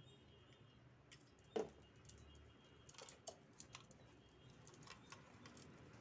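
Near silence with a few small scattered clicks and taps from hands twisting and tying electrical wires, one sharper click about one and a half seconds in.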